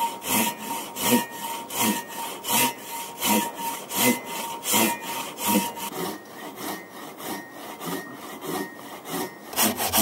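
Hand pruning saw cutting through a beech branch in steady back-and-forth strokes, about one and a half a second. Near the end the strokes come faster.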